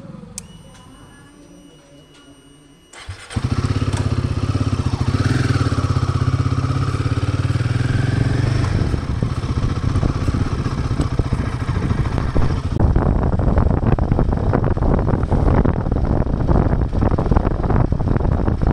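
Royal Enfield single-cylinder motorcycle engine starting about three seconds in, after faint steady high tones, then idling steadily. From around thirteen seconds it runs rougher and busier.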